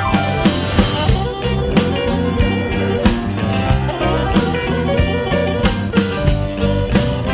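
Electric blues band playing an instrumental passage: guitar over bass and drums with a steady beat.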